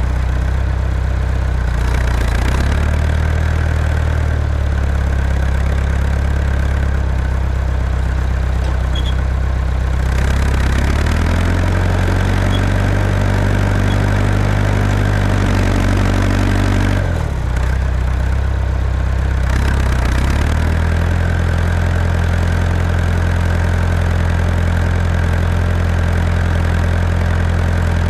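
Tractor engine running under load while plowing packed snow and ice. Its speed shifts several times, rising about two seconds in, again about ten seconds in, dropping near seventeen seconds and picking up again soon after.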